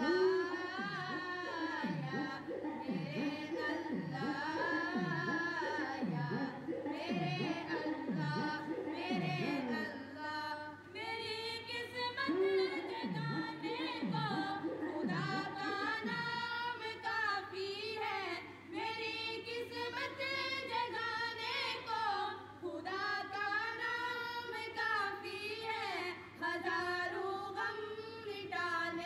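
Unaccompanied devotional singing in the style of an Urdu naat: a lead voice over layered backing voices, with a low falling vocal swoop repeated somewhat faster than once a second through the first half.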